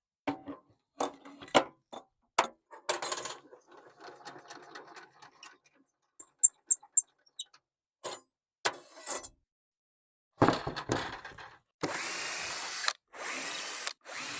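Clatter and knocks of workshop tools being handled and set down, with four quick high beeps in the middle and a heavy thud later. Near the end a small power tool motor runs in three short bursts of about a second each.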